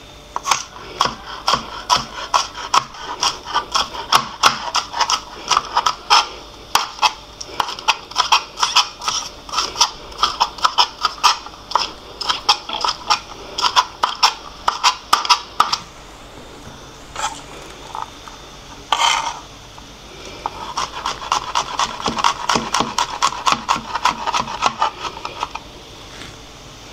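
Kitchen knife chopping scallion and onion on a cutting board: quick, even chops, about three a second. Past the middle the chopping stops for a few seconds, with one short scrape, then resumes as a run of faster, lighter chops.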